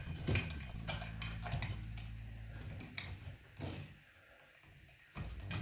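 Hands working wires into the connectors of an LED pot light's junction box: scattered small clicks and rattles of wire and box being handled, over a low steady hum that drops away for about a second near the end.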